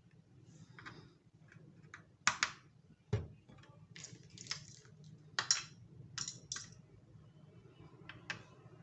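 Plastic toy train track pieces being handled, clicking and clacking at an irregular pace, with one duller knock about three seconds in.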